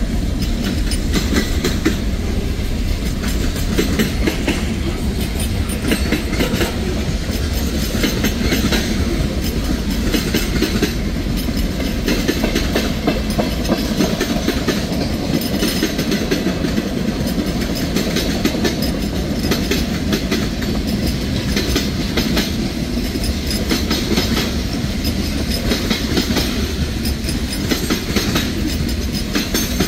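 Cars of a mixed freight train rolling past at close range: a steady rumble with the wheels clacking over the rails about every second or two.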